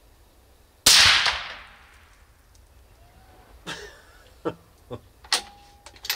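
A single shot from a suppressed .22-250 Remington bolt-action rifle, a little under a second in, with its report dying away over about a second. A few seconds later come a handful of sharp clicks and clacks as the rifle's bolt is handled.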